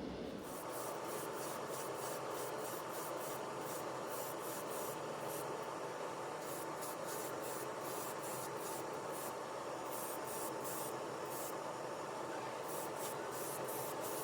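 Quick, repeated rubbing strokes in irregular runs of several a second, over a steady low hiss and a faint hum.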